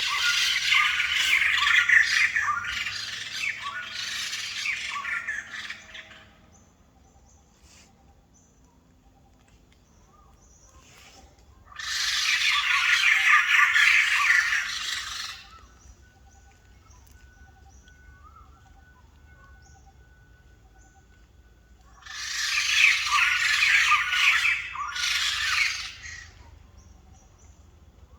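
White-crested laughingthrush calling in three loud, harsh bouts a few seconds each. The first bout lasts about six seconds, the other two about four, with quieter gaps between them.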